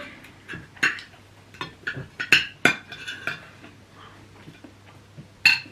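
Cutlery clinking against plates and bowls while eating: a scattered series of sharp clinks, a few of them ringing briefly, the loudest near the middle and near the end.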